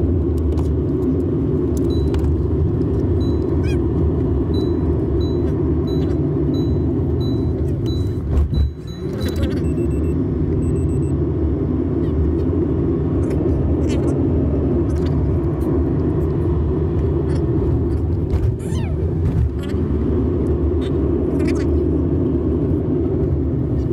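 Steady road and engine rumble inside a moving car's cabin. A row of faint, evenly spaced high beeps sounds for several seconds near the start.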